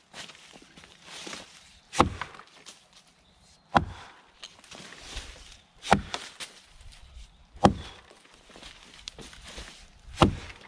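Brades Tasmanian pattern axe chopping into a green sycamore (sycamore maple) log: five sharp strikes roughly two seconds apart, with softer shuffling and rustling between the strokes.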